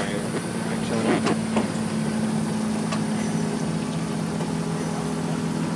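Boat's motor running steadily with an even hum, with a few faint short clicks about a second in.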